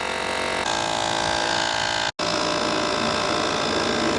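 Cordless EAFCar mini tire inflator's small electric piston compressor running steadily with a buzzing motor note. The sound breaks off for an instant about two seconds in.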